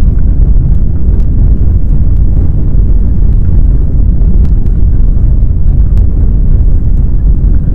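Loud, steady low rumble, with a few faint clicks on top, standing for the heavy ground shaking of a simulated great earthquake.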